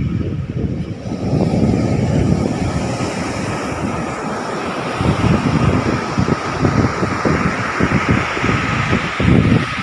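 Wind buffeting the microphone: a loud, irregular, gusty rumble with a faint steady high tone running through it.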